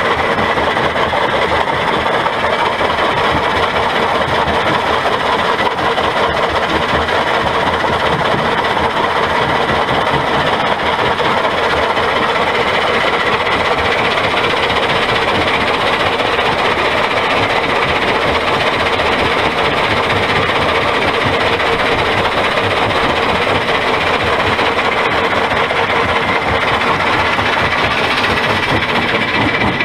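Stone-crushing plant running: vibrating screen, crusher and conveyor belts in a loud, steady mechanical din, with crushed rock rattling through.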